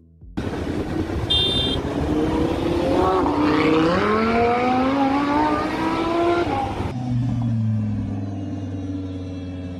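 Lamborghini Huracán V10 engine revving up, its note climbing steadily in pitch for about six seconds. It then cuts abruptly to a steadier, lower note.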